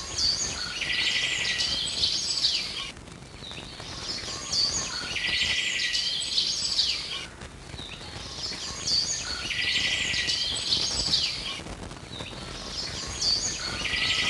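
Birdsong: the same chirping phrase repeats about every four and a half seconds, with quieter gaps between the phrases.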